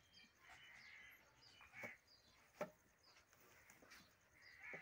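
Near silence with faint bird chirps and a few light knocks, the sharpest about two and a half seconds in.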